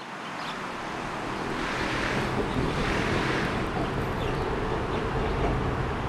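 Road traffic noise that swells over the first couple of seconds and then holds steady, with a low engine hum under it.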